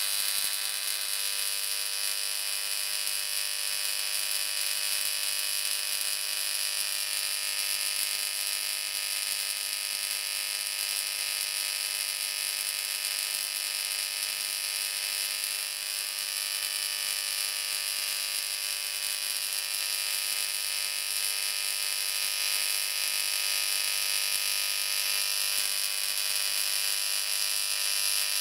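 High-voltage electric arcs buzzing through magnesium shavings between two electrodes: a steady, high-pitched hiss and buzz that runs without a break.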